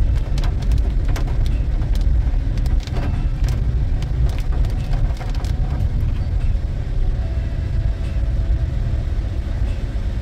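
Inside a car's cabin in heavy rain: a steady low engine and road rumble, with raindrops tapping on the windshield and roof in quick irregular clicks, thickest in the first half.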